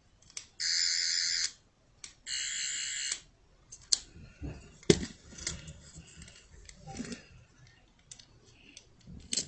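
Toy 11th Doctor sonic screwdriver playing its electronic buzzing sound effect twice, each burst about a second long, as its button is pressed. Scattered clicks and knocks of the toy being handled follow.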